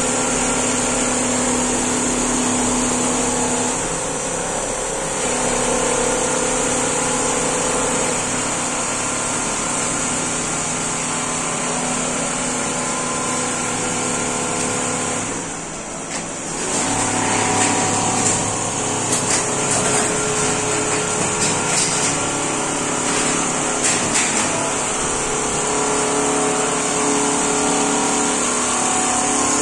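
Richpeace single-head computerized quilting machines running, their sewing heads stitching: a steady mechanical drone with several held tones and a high hiss. It dips briefly about halfway through, then carries on with light irregular clicks.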